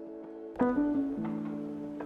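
Background music: soft plucked-string and keyboard notes, with a new chord struck about half a second in.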